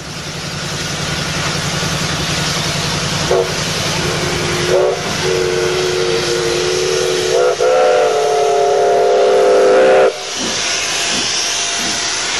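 Chime steam whistle of Canadian Pacific 4-6-2 Pacific No. 2317 blowing over the steady hiss of escaping steam: a short toot about three seconds in, then two long blasts of several notes at once, the second louder, cut off sharply about ten seconds in.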